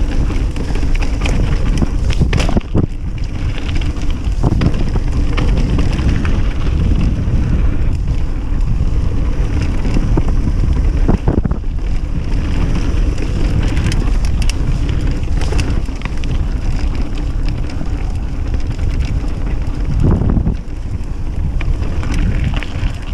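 Mountain bike descending a rough trail: steady wind rushing over the microphone with the bike's rolling and rattling noise, broken by a few sharp knocks as it hits bumps and drops.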